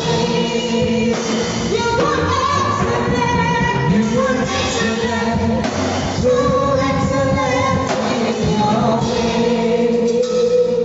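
Gospel song with singing voices over instrumental accompaniment, the sung notes held and changing every second or two.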